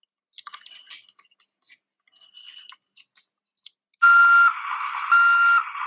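Plastic toy dump truck handled with faint clicks and rattles, then about four seconds in its electronic sound effect starts: loud reverse-warning beeps about once a second over a steady electronic noise.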